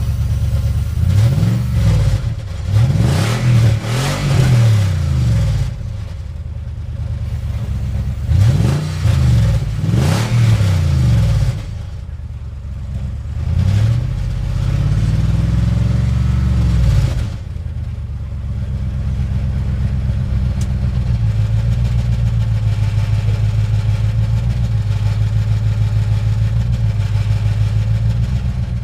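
Car engine revved up and back down several times, in quick pairs of throttle blips and then one slower rev. It then settles into a steady idle for the last ten seconds or so.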